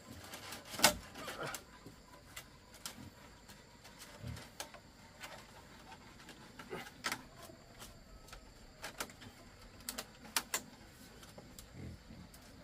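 Irregular, scattered clicks and light knocks, about a dozen spread unevenly, the loudest about a second in.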